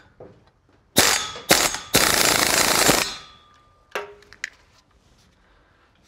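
Pneumatic air ratchet run in three bursts, two short ones then one about a second long, spinning nuts down onto the bolts of a new driveshaft flex disc to snug them before final torquing. A couple of light metallic clinks follow.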